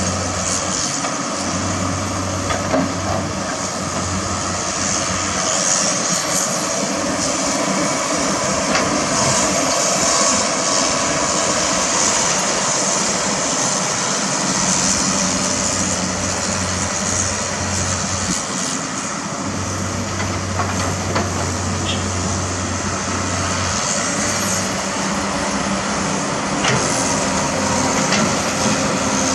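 Diesel engines of an excavator and dump trucks running steadily, with a low hum that comes and goes several times.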